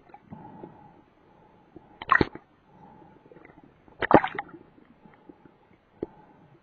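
Underwater audio through a camera housing: two short bursts of bubbling about two seconds apart, with scattered sharp clicks and a faint steady hum.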